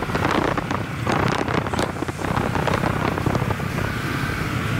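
Wind rushing over the microphone together with road noise from a car travelling at highway speed, an irregular, gusting rush.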